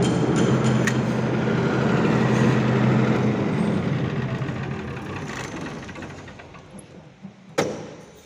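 Large diesel generator set running steadily with an even low drone, which fades away over the second half. A single sharp click comes near the end.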